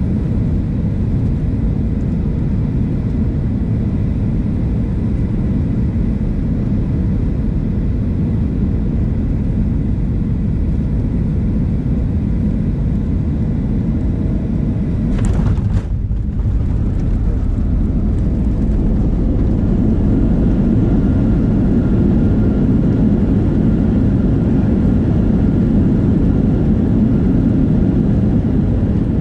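Steady low rumble inside the cabin of a Boeing 737-700 taxiing after landing: engine noise and the rumble of the wheels on the ground. About halfway through there is a brief sharp noise, and the rumble grows a little louder for the last third, with a faint steady whine.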